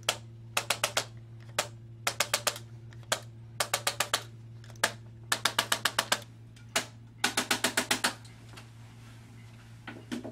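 Impulse electric chiropractic adjusting instrument firing against the spine: a single sharp click, then a quick run of about six clicks, repeated five times before stopping about eight seconds in.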